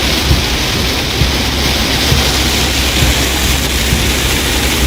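Heavy rain falling on a moving truck, a steady wash of noise over a constant low vehicle rumble.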